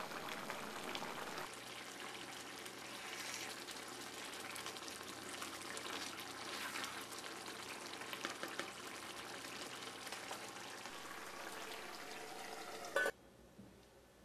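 Coconut-milk green curry simmering and bubbling in a cast-iron pan, a steady crackling hiss with small pops, while a wooden spatula stirs through it. Near the end a short knock, then it goes much quieter.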